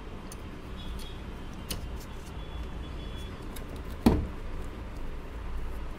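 A single sharp knock about four seconds in as a rubber hinge bush on a sewing machine head is pressed down into its slot in the wooden table, with a few light clicks of handling around it.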